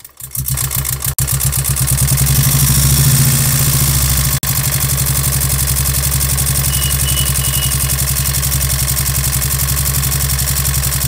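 Royal Enfield Classic 350 BS6 J-series single-cylinder engine running at idle with a fast, steady chik-chik tik-tik ticking from the top end. The mechanic thinks the engine was run with almost no oil, leaving the tappets loose and the piston rings worn.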